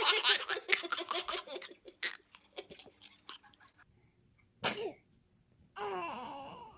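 A baby's giggling trailing off over the first two seconds, then a single short sneeze about four and a half seconds in, followed by a brief vocal sound near the end.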